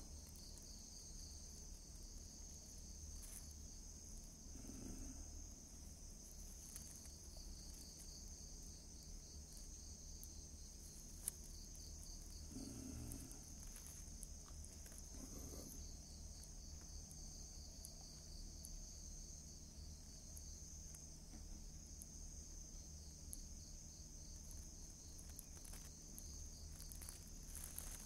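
Insects chirring steadily, a faint high-pitched drone, with a single brief click partway through.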